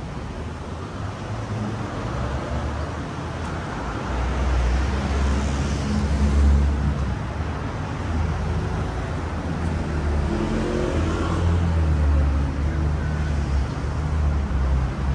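City street traffic: motor vehicles running and passing close by, with a steady low rumble. It swells as vehicles go past, loudest about six seconds in and again around eleven seconds.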